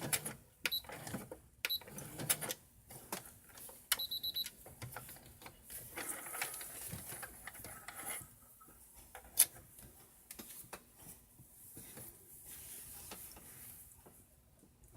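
Brother CS-6000 computerized sewing machine being worked: scattered mechanical clicks and handling, with short high electronic beeps from its buttons, including a quick string of beeps about four seconds in.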